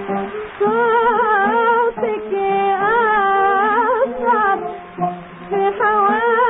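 A woman singing an ornate Arabic melody with heavy vibrato over oud accompaniment, on an old recording with no highs. The voice enters about half a second in and pauses briefly twice.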